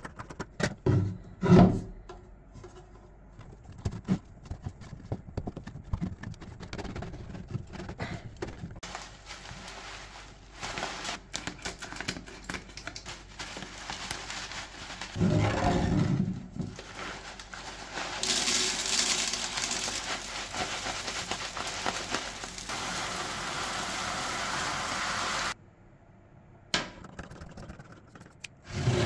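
Hands working with filter fleece, scissors and a foil bag of activated charcoal pellets: scissors snipping, the bag crinkling and the pellets rattling, with scattered clicks and knocks on the worktop. About two thirds of the way in comes a long steady rushing stretch that cuts off suddenly.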